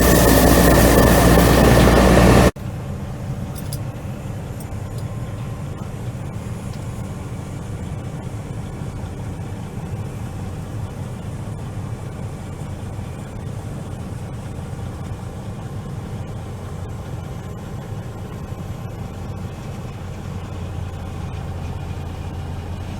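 Loud, steady roar of harvest machinery as a combine and grain cart unload corn into a truck, cut off abruptly about two and a half seconds in. A quieter heavy engine then runs steadily at low speed.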